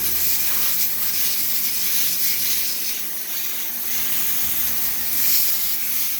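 Steady hiss of a garden hose's water spray being sprayed through a dirty air-conditioner condenser coil to wash it out, with a faint steady low hum underneath.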